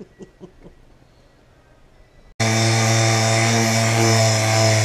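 A few faint clicks of handling a plastic cup, then, about halfway through, an orbital sander cuts in suddenly and runs steadily against a car bumper's painted plastic, a loud hum with a hiss over it.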